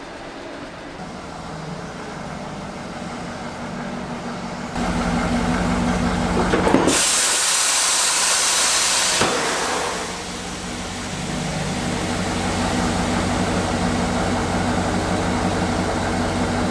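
Automotive shop lift's electric hydraulic pump motor running, with a loud rush of escaping air for about two seconds near the middle that cuts off with a click.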